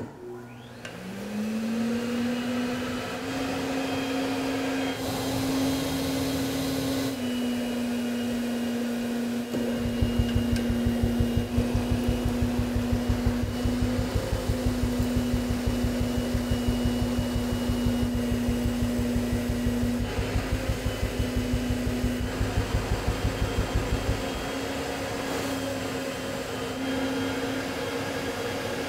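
Force II cellulose insulation blowing machine winding up, its blower rising in pitch within the first second to a steady hum, with cellulose rushing through the hose into a wall cavity being dense-packed. From about ten seconds in, a fast, regular pulsing of about three beats a second joins the sound for some fourteen seconds, then stops.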